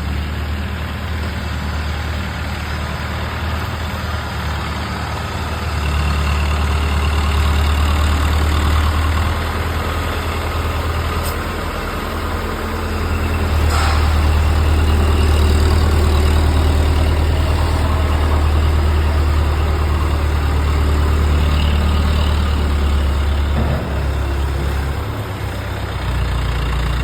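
Drum wood chipper running with a steady low drone that grows louder about six seconds in and again about halfway through, then eases near the end, with a couple of brief sharp clicks.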